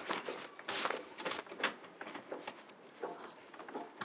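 A wooden door being worked open by hand: an irregular string of clicks, knocks and rattles from the door and its latch.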